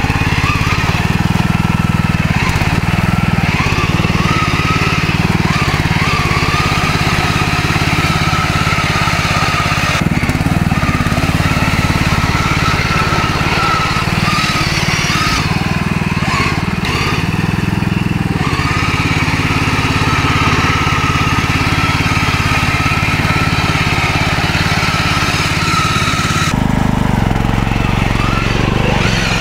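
Husqvarna riding lawn mower's engine running steadily under load as the mower drives through mud and leaves, with a high whine that wavers up and down. The engine note shifts near the end.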